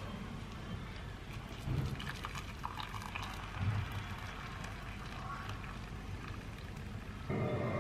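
Hot water poured from a stovetop kettle into a ceramic mug, a steady splashing trickle. A louder low steady hum comes in just before the end.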